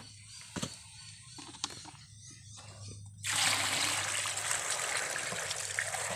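Water pouring from a plastic jug onto sweet potatoes in a cooking pot, starting about three seconds in and running steadily until near the end. Before the pour, small clicks and knocks of the jug being handled.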